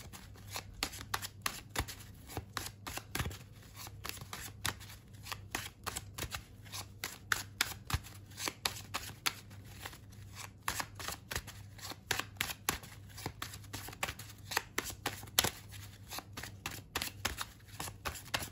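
Albano-Waite tarot deck shuffled overhand between the hands: a continuous run of quick, irregular card snaps and slides.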